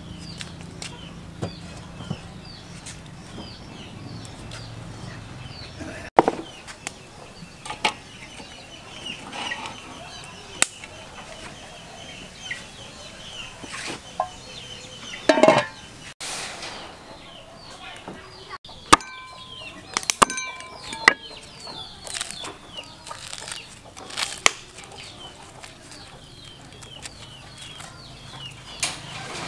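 Chickens clucking, with high bird chirps throughout and one louder call about halfway through. A few sharp clinks of metal cookware.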